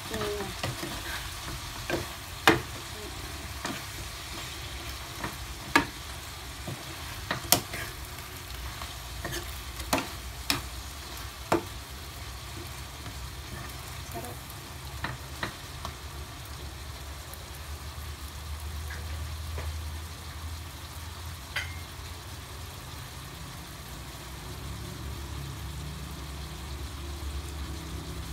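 Whole shrimp sizzling in butter and oyster sauce in a frying pan while a metal spoon stirs them, clinking sharply against the pan a dozen or so times, mostly in the first half.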